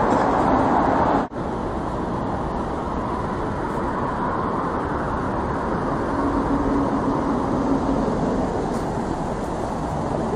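Steady city street traffic noise, with a faint low hum in the middle.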